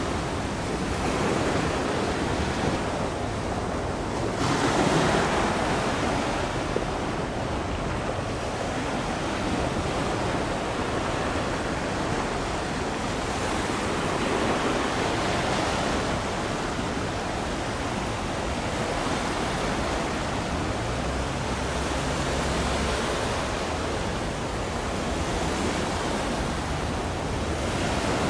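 Steady rush of sea water with wind on the microphone, swelling and easing over several seconds. A faint low hum comes in about two-thirds of the way through.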